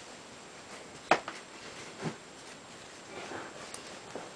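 An infant car seat's harness and padded straps being handled: a sharp click about a second in, a softer click just after, another knock about two seconds in, and faint rustling of the straps.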